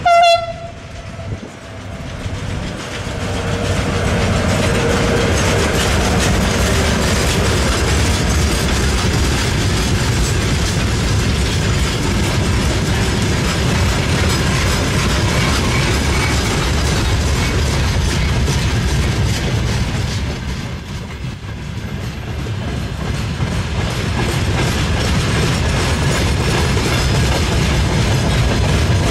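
A Siemens ER20CF Eurorunner diesel locomotive gives a short single-note horn blast, the loudest sound here. The locomotive and its freight wagons then roll past with a steady rumble of wheels on rail, which eases briefly about two-thirds through and picks up again.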